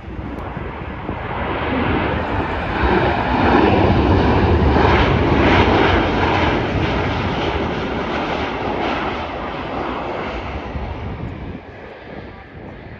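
Jet airliner passing close, its engine noise swelling to a peak about four to six seconds in and then fading away.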